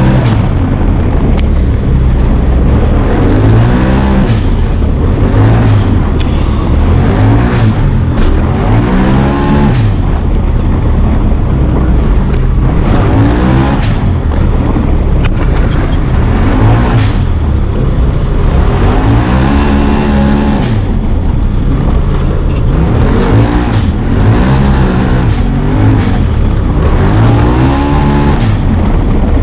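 Side-by-side UTV engine racing, heard on board: it revs up and falls back again every second or two as the throttle is worked, with scattered sharp knocks and clatters.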